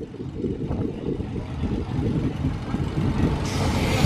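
Small family roller coaster car running along its steel track: a steady low rumble from the wheels on the rails, with a rush of wind hiss rising near the end.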